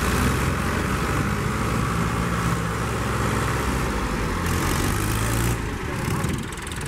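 Diesel engines of a Mahindra Arjun 555 DI and a Powertrac 445 tractor running hard under heavy load, as the rope-towed, sugarcane-laden tractor is pulled out of the mud. The sound is steady, then drops in level about five and a half seconds in.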